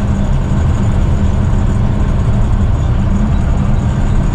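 Mack Granite dump truck's diesel engine and road noise heard from inside the cab while driving: a steady low drone.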